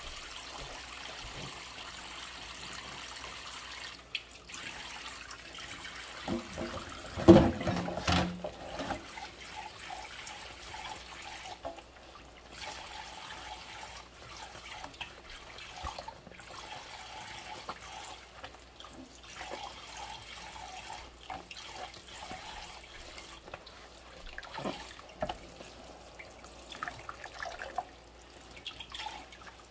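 Dishes being washed by hand in a stainless steel sink of soapy water: water splashing and pouring off a plastic food container handled with rubber gloves, with small clicks and drips. A louder clunk and splash comes about seven seconds in.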